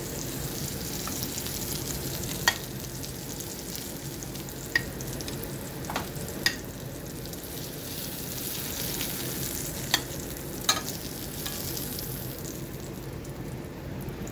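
Scallops sizzling in hot oil in a stainless steel pan, the burner just shut off, with six sharp clicks standing out over the steady sizzle.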